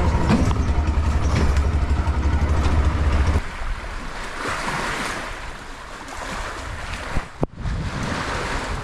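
Waves washing onto a beach, with wind buffeting the microphone as a heavy low rumble that drops away about three seconds in. There is a brief sharp break near the end.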